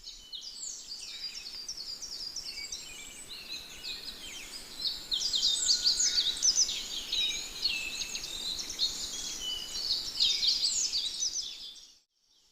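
Dense chorus of many small birds chirping and twittering, with rapid overlapping high calls. It fades out near the end.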